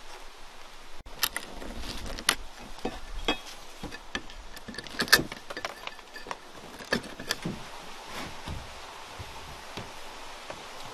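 Irregular knocks, clicks and clatter of siding boards and hand tools being handled, with a few sharper knocks and no steady rhythm.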